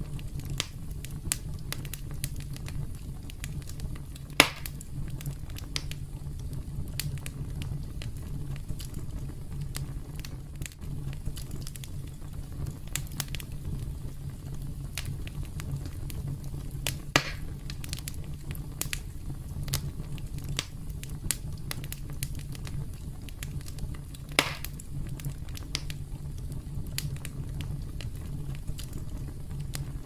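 Campfire crackling: a steady low rumble of burning wood with many small crackles throughout, and three louder pops spread through it.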